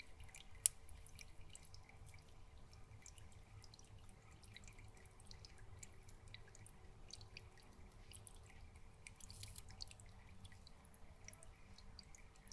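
Faint dripping and trickling water in a shallow aquarium, where the filter return flows over a wet moss-covered rock, with many small scattered drip ticks. One sharp click stands out within the first second.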